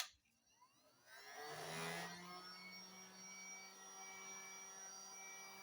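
Heat gun switched on with a click; about a second later its fan motor spins up, rising in pitch, then runs steadily with a whir, a low hum and a thin whine.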